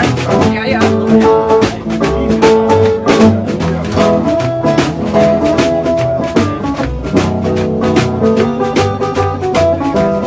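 Live blues band playing an instrumental passage with a steady, regular beat and sustained melody notes.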